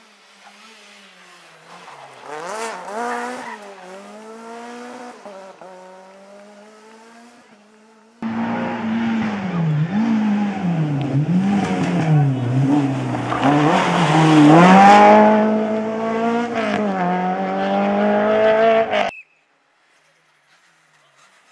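Rally car engines at full throttle, the revs climbing and dropping with each gear change and lift. First one car approaches from a distance, then about eight seconds in a much louder one runs hard close by. The sound cuts off suddenly about two seconds before the end.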